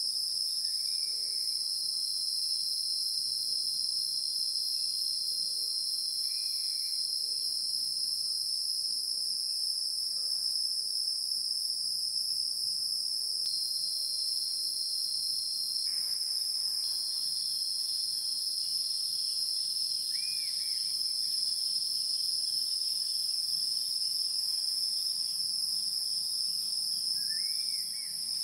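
Steady high-pitched drone of an insect chorus, unbroken throughout, with a few faint short chirps here and there.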